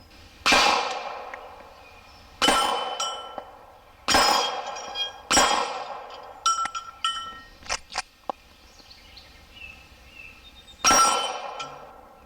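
Five slow, deliberate pistol shots fired at steel plates, each followed by the ringing clang of steel, with a cluster of lighter metallic clinks about midway.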